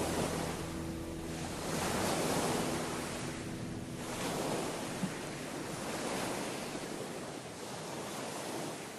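Sea surf washing onto a sandy beach, the noise of the breaking waves rising and easing in slow surges every couple of seconds, with some wind.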